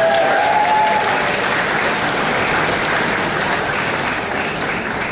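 Audience applauding a graduate whose name has just been called, the clapping easing off near the end.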